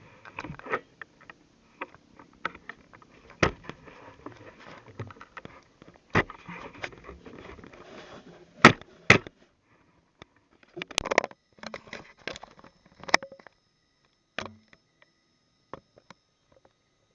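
Irregular rustling with scattered sharp clicks and knocks, the loudest pair about nine seconds in, thinning out towards the end.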